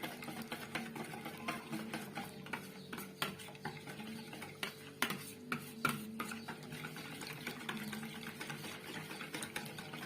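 Milk, flour and spices being whisked together in a bowl for a béchamel: irregular clicking of the whisk against the bowl over a steady low hum.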